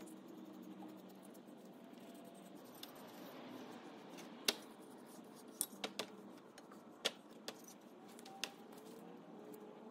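A paintbrush working a coating over a metal fuel sending unit: faint brushing, then a series of light, sharp metallic clicks and taps from about four and a half seconds in as the brush and the unit's metal parts knock together.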